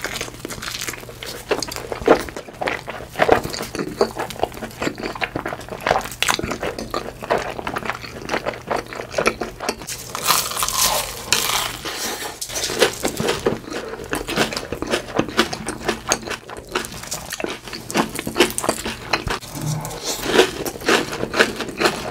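Close-miked chewing of big mouthfuls of cheesy pizza and bread: a constant, irregular crackle of crunching and wet mouth clicks.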